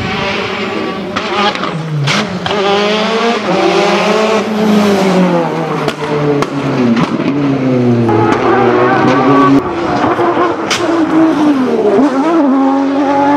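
Rally car engines driven hard, one car after another: the pitch climbs as each revs out and drops on lifts and braking. A different car's engine takes over about eight seconds in.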